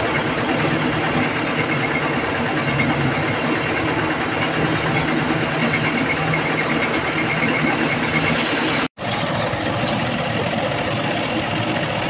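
An engine running at a steady idle, with a constant low hum under it. The sound cuts out for a split second about nine seconds in, then carries on unchanged.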